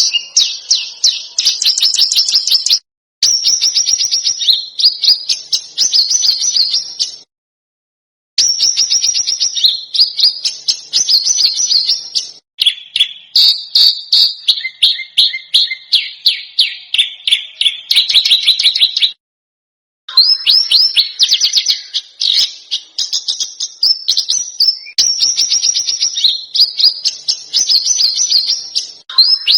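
Recorded songbird song used as a masteran tutor track: rapid runs of sharp, harsh, repeated high notes in phrases several seconds long. The phrases are broken by sudden silent gaps where clips are spliced together, about three seconds in, around seven seconds in, and near nineteen seconds in.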